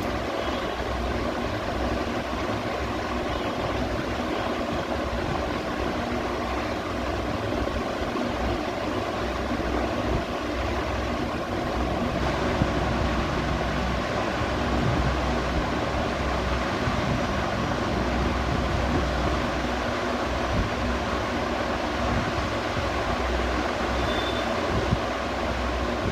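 Ceiling fan running steadily: a constant whir with a faint motor hum underneath.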